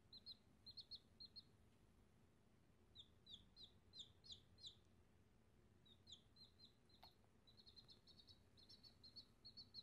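Baby chick peeping faintly: short, high, slightly falling peeps in quick runs with pauses between them, the run near the end coming faster. One light click about seven seconds in.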